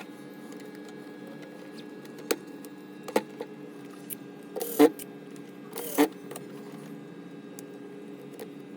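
A handful of sharp clicks and knocks, the loudest about five and six seconds in, over a steady low hum, as of tools and laptop parts being handled on a repair bench.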